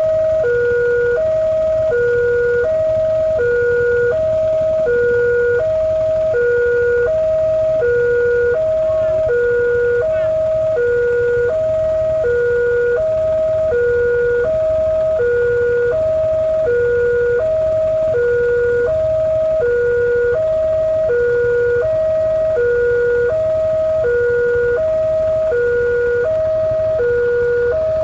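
Railway level-crossing warning alarm sounding a steady two-tone alternation, high then low, each tone about half a second, repeating without a break: the signal that the crossing barrier is down for an approaching train.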